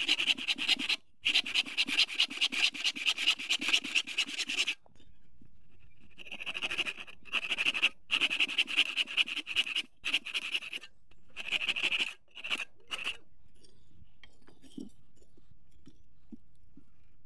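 Small hand saw cutting through a thin piece of wood in quick back-and-forth strokes, about four a second. The sawing comes in three runs with short pauses between them, and the last run ends about 13 seconds in.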